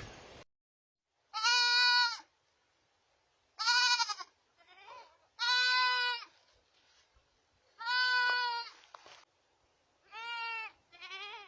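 Baby goat (kid) bleating: about six separate high cries, each under a second long, with short silences between.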